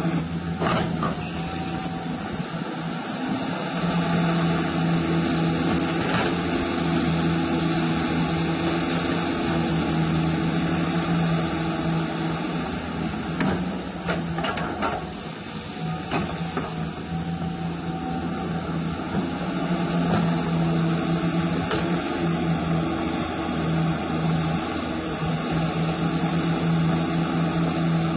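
Hydraulic pump of a radio-controlled scale CAT 336 excavator running with a steady whine that dips and comes back as the boom and bucket move, with a few sharp clicks of the bucket working the stony soil.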